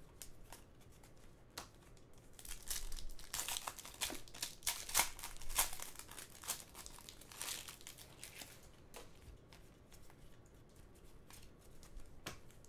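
Foil wrapper of a Panini Contenders hockey card pack crinkling and tearing as it is opened by hand, densest from about two to six seconds in, then lighter, scattered crinkles.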